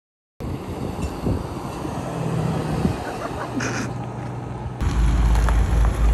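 A Chevrolet Colorado pickup truck's engine running as the truck drives slowly. The sound comes in abruptly after a moment of silence. There is a brief hiss about three and a half seconds in, and the low rumble grows much louder at about five seconds.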